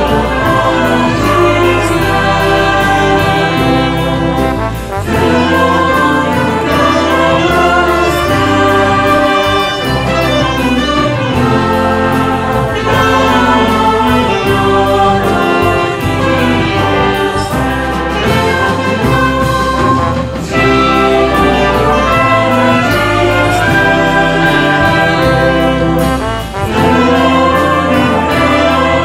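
Swing big-band music led by a brass section of trumpets and trombones, over drums and bass, with a choir singing.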